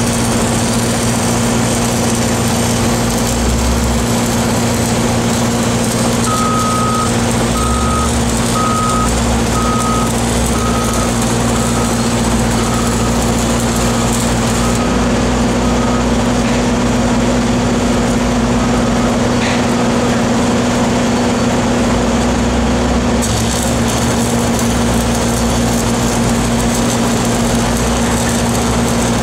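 Stick (shielded metal arc) welding on a large steel pipeline joint: a steady crackling hiss of the arc over the steady drone of a running engine. From about six seconds in, a reversing alarm beeps about once a second, a dozen times, growing fainter.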